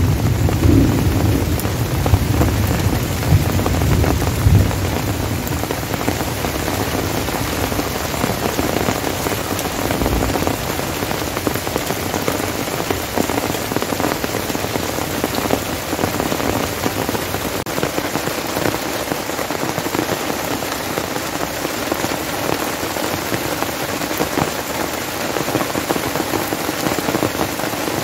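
Heavy rain pouring steadily onto a tent flysheet and forest foliage. Low thunder rumbles under the rain for the first few seconds and dies away.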